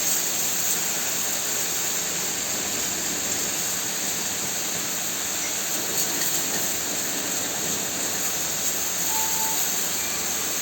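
High-pressure water jet from a cow-washing machine's spray gun, a steady hiss of spraying water.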